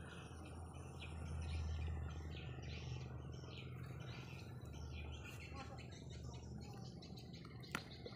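Small birds chirping in quick, repeated short calls over a steady low hum, with one sharp click near the end.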